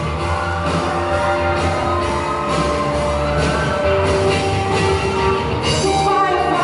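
Live rock band playing through a PA: distorted electric guitars, bass and drum kit with a keyboard, with a louder cymbal crash near the end.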